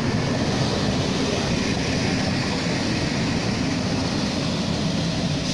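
Passenger coaches of a locomotive-hauled train rolling slowly along the platform, a steady low rumble of wheels on rail.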